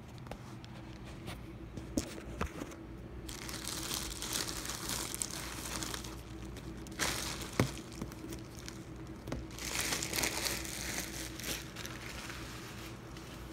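Plastic bag being crinkled and handled in three long bursts, with a few sharp knocks in between.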